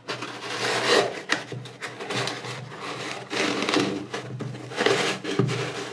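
Crackly rustling and rubbing as a hand stuffs a beige packing insert into an Adidas Eastrail GTX trail shoe, the insert scraping against the shoe's fabric lining.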